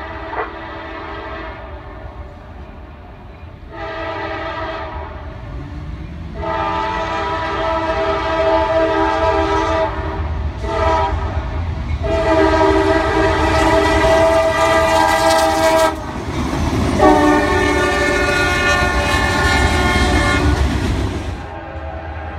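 Diesel freight locomotive's multi-note air horn sounding a string of blasts, some short and some several seconds long, the usual warning for a road crossing, over the low rumble of the approaching train.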